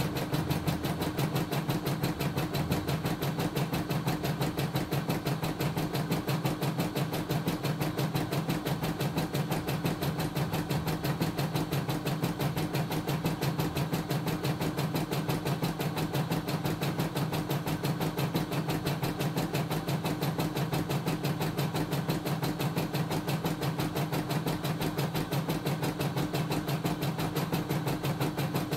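CNY E960 computerised embroidery machine stitching a design. The needle bar runs at a fast, steady rate, giving a rapid, even tapping rhythm over the motor's running sound.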